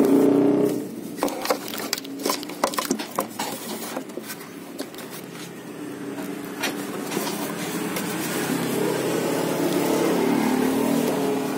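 Light clicks and rattles of plastic wiring connectors being handled and pushed together at a car's headlight socket, over a vehicle engine hum that is loud for the first second, drops away, and builds again toward the end.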